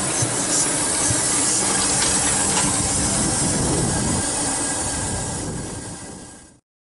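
Narrow-gauge (2 ft gauge) steam locomotive Sea Lion and its carriages passing close by: steam hissing and wheels running on the rails. The sound fades in the last second or so and then cuts off abruptly shortly before the end.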